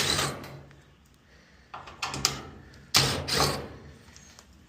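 Fasteners being taken out of a dryer's sheet-metal cabinet, in three short bursts of a power driver with metal clatter: at the start, about two seconds in and about three seconds in.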